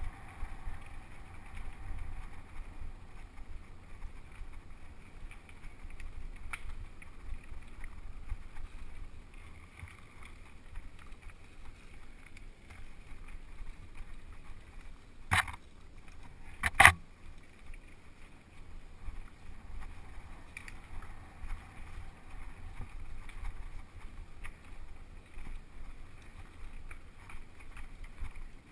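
Mountain bike riding fast down a dirt trail, heard from a GoPro Hero 2 on the rider: steady wind rumble on the microphone over the rattle of the bike on bumps. Two sharp knocks come about a second and a half apart in the middle, the second the loudest.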